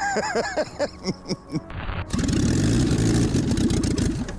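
A Lada four-cylinder engine with a deliberately unbalanced flywheel, a piece cut out of it, comes in abruptly about two seconds in and runs loud, shaking hard on its mounts. Before it, men's voices.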